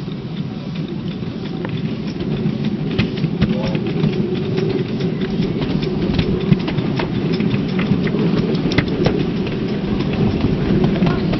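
7¼-inch gauge miniature railway train running on the track: a steady low rumble with many sharp clicks, gradually growing louder.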